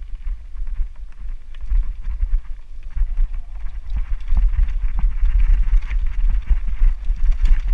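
Wind buffeting the microphone of an action camera on a mountain bike running downhill over a rough dirt trail, with the bike and mount rattling and knocking over bumps and tyres crunching on loose dirt and stones; the hiss grows louder about four seconds in.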